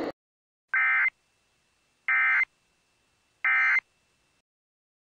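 Emergency Alert System End of Message signal: three short, identical bursts of SAME digital data tone, about a second apart, closing the alert.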